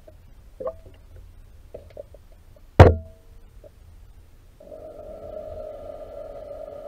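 Picked up underwater: scattered small clicks and one sharp, loud knock about three seconds in. Then, from just past halfway, a steady electric-motor hum from the RC model submarine's drive motor and propeller running through the water.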